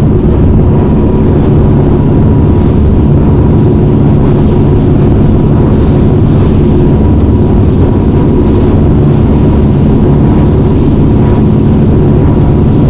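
Boat under way at speed: steady engine drone with water rushing along the hull.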